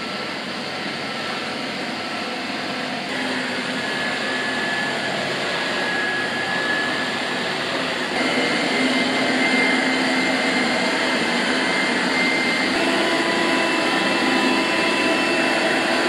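360 S10 robot vacuum's suction fan running with a steady whine, switched up from minimum power through auto to max mode. The whine steps higher and louder three times.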